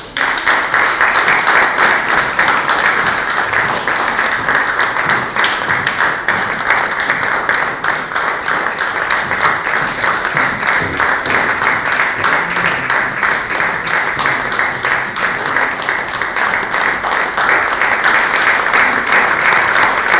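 Audience applauding: many hands clapping in dense, steady applause that starts all at once and keeps up without a break.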